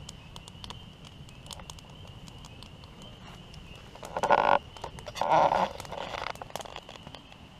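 Wood campfire crackling and popping, with a steady high trill in the background. Two short, loud frog croaks come about 4 and 5 seconds in.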